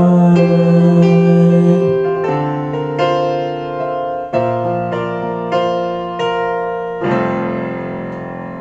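Closing bars of a pop love ballad on keyboard. A held note runs for about two seconds, then seven or so piano chords are struck one after another, and the last chord is left to ring and fade out.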